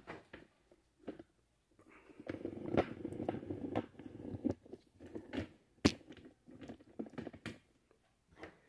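Faint handling noise from a camera being moved: rustling, scattered light knocks and small clicks, with one sharper click about six seconds in.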